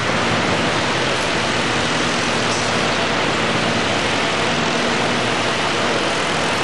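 A loud, steady rushing noise with a faint low hum underneath.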